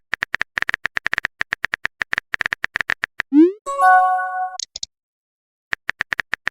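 Chat-story sound effects: a run of rapid, irregular typing clicks for about three seconds, then a short rising swoop and a ringing chime about a second long. After a brief silence the typing clicks start again near the end.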